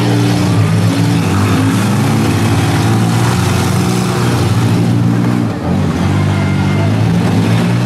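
Minivan engines running and revving, their pitch rising and falling, with a brief drop about five and a half seconds in.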